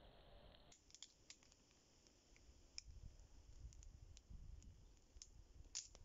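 Small wood campfire crackling faintly, with scattered, irregular sharp pops, one louder near the end, over a low rumble in the second half.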